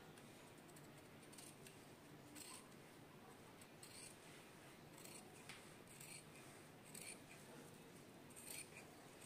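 Faint, regular snips of large scissors cutting through folded blouse fabric, roughly one cut a second.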